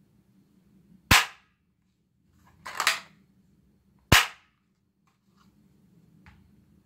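Three sharp gunshot-like bangs about a second and a half apart, the middle one a quick double, typical of a toy gun or a cap-gun sound effect. A few faint clicks follow near the end.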